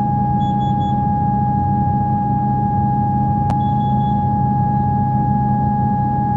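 Inside a Comeng electric train carriage: a steady high-pitched electrical whine over a low hum. Short runs of quick high pips come about half a second in and again at about three and a half seconds, the second run just after a sharp click.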